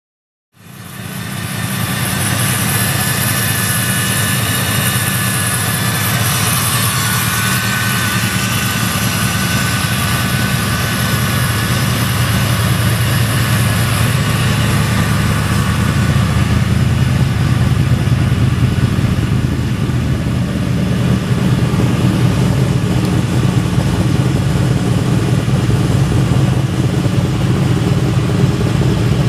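Car engine idling steadily with a deep, even exhaust note. It starts abruptly about half a second in.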